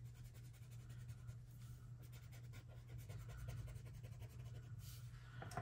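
Faint scratchy rubbing of a paper blending stump worked back and forth over colored pencil on cold-press watercolor paper, blending the layer out, over a low steady hum.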